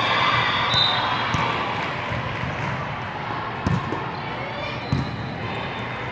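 Volleyball served overhand: a sharp smack of hand on ball about three and a half seconds in, and another ball impact about a second later. Both sound over the steady, echoing din of voices in a large hall.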